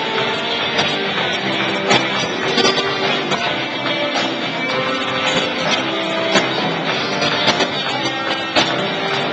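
A live band playing, with strummed guitar and sharp percussive hits.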